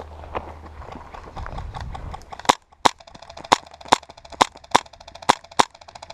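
Airsoft gun firing about eight single shots in sharp cracks, roughly two a second, starting about two and a half seconds in.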